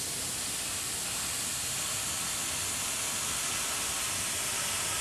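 Badger airbrush spraying paint: a steady hiss of compressed air from the nozzle with the trigger held down.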